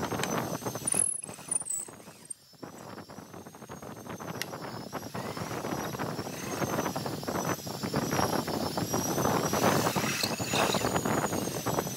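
Pine blocks clacking and scraping as they are shifted by hand along steel threaded rods, over a steady background noise. The sound drops out briefly about two seconds in.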